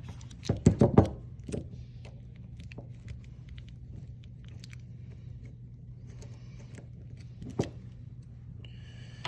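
Metal tools clinking and knocking against the metal valve body as the two front bolts of a Graco MD2 dispensing valve are worked loose: a cluster of sharp clicks about a second in, then a couple of single knocks, over a steady low hum.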